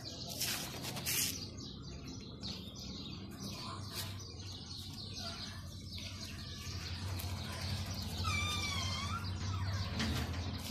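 Craft foam sheets handled and rustled on a tabletop, over a low steady hum. About eight seconds in, a bird chirps with a wavering high call lasting a second or so.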